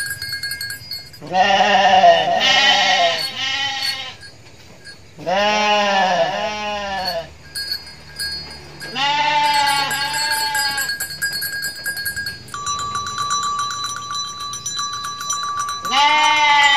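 Young lambs bleating: about nine wavering bleats in four bursts of two or three calls, the first burst about a second in and the last near the end.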